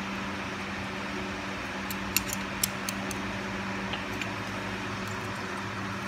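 Small metallic clicks and taps of a wrench on a rocker-arm adjusting screw as the valve clearance is reset on a Kubota three-cylinder diesel head: a handful of sharp clicks about two to three seconds in and a few fainter ones later, over a steady low hum.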